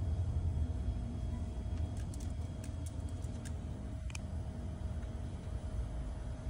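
A steady low rumble, with a few faint, sharp clicks about two to four seconds in.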